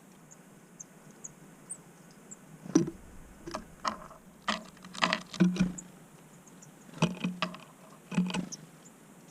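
Sharp knocks and taps at a backyard bird feeder, coming in quick clusters several times. A few faint, very high, short chirps sound in the first two seconds.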